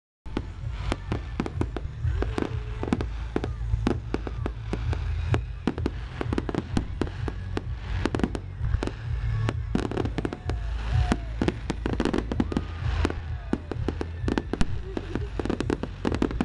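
Fireworks display: a rapid, irregular run of bangs and crackles from bursting shells and crackling stars, several a second, over a steady low rumble.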